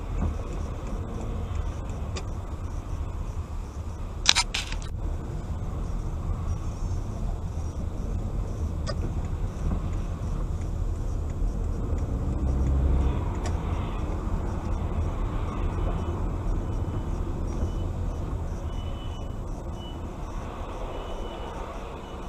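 Steady low rumble of a car's engine and tyres, heard from inside the cabin while driving in slow highway traffic. A short sharp rattle sounds about four seconds in, and a run of faint, evenly spaced short high beeps starts about two-thirds of the way through.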